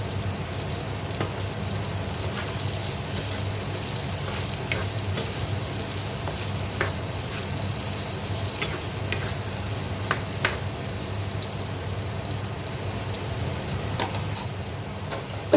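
Green beans with onion, garlic and soy sauce sizzling in a frying pan as they are stirred, with occasional sharp clicks of the utensil against the pan. A steady hiss runs throughout, over a low hum.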